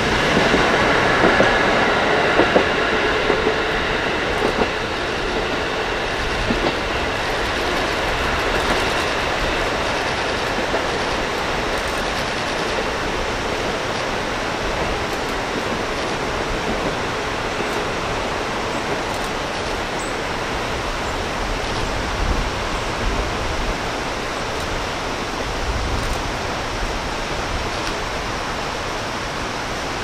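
KiHa 40 diesel railcar running away along the track, its engine and wheels loudest at first and fading over several seconds, over the steady rush of a river.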